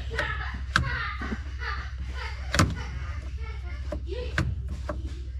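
Tools and metal parts knocking as the tractor transmission is handled: four sharp knocks, the loudest about two and a half seconds in, with faint talk underneath.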